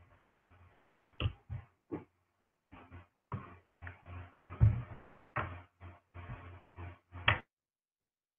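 A string of about a dozen short knocks and bumps at irregular spacing, then the sound cuts off completely a little over seven seconds in.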